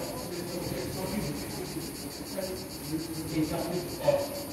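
Steady, high, finely pulsing chirring of insects, with faint voices now and then.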